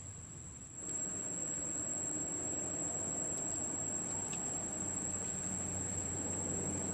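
Steady high-pitched insect drone over outdoor background noise with a low hum. It gets louder about a second in.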